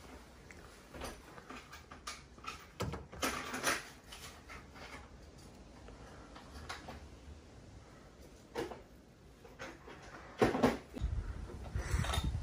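Plastic boiler flue pipe being handled and pushed into place: scattered knocks, scrapes and clicks of plastic, a few seconds apart. Near the end a low rumble of wind on the microphone comes in.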